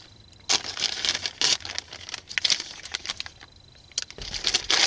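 Plastic postal mailer bag crinkling and rustling in irregular bursts as it is handled and pulled open, with a brief lull about three seconds in.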